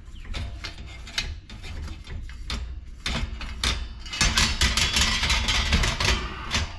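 Metal parts of an LED light fixture being unscrewed and worked apart: scattered clicks and knocks, then a dense run of rapid clicking and rattling for the last three seconds or so.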